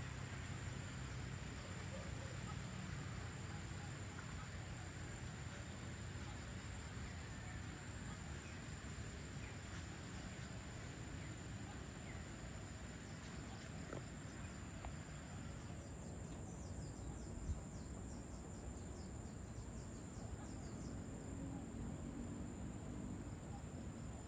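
Crickets and other insects trilling steadily over a faint low background rumble, with one short tick about two-thirds of the way in.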